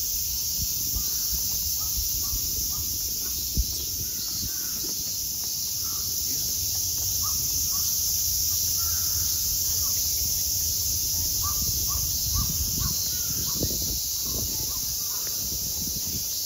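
Summer park ambience: a steady high-pitched drone of cicadas, with birds calling in short, repeated notes throughout. A single thump comes about three and a half seconds in.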